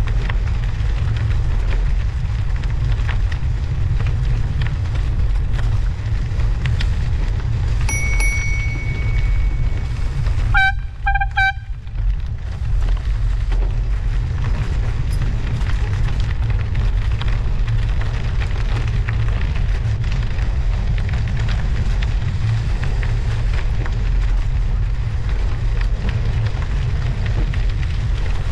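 Steady low rumble of wind and road noise on a bicycle's front-mounted action camera while riding on studded winter tyres. About eight seconds in, a steady high tone sounds for a couple of seconds, followed by a quick run of high beeps.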